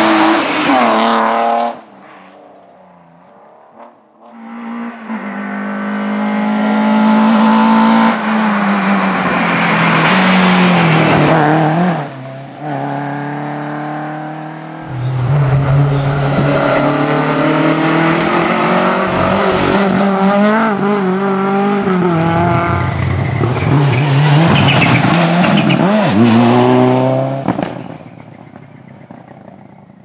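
Rally cars passing one at a time at full speed, engines at high revs, the pitch climbing and dropping through gear changes and lifts off the throttle. One car rushes past in the first two seconds; after a brief lull two more cars are heard, each for several seconds.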